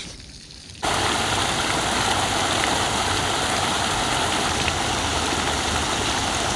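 Rain runoff pouring from a stormwater drain pipe and splashing into the river: a steady rush of falling water that starts suddenly about a second in.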